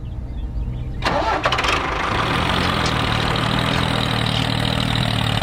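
An engine starts about a second in, then runs steadily.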